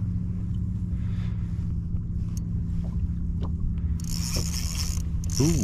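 Steady low hum from the fishing kayak's drive, with a few light clicks. About four seconds in, a higher hissing buzz joins it, and right at the end a man's voice starts to shout.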